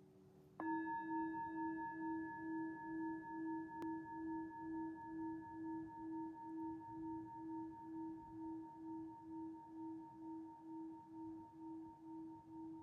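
A singing bowl is struck once, about half a second in, and left to ring. It holds a long, slowly fading tone with higher overtones, and the tone pulses about twice a second.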